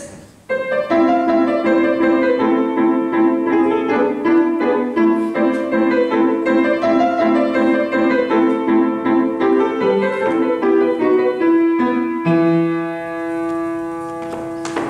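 Grand piano played live: a flowing passage of quick notes that ends about twelve seconds in on a held chord, left ringing and slowly fading.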